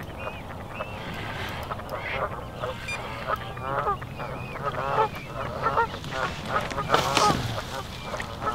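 Waterfowl calling in a run of many short, repeated calls, with water splashing about seven seconds in as a hooked fish thrashes at the surface by the landing net.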